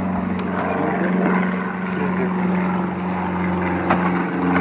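An engine drones steadily with a low hum, growing louder just before the end.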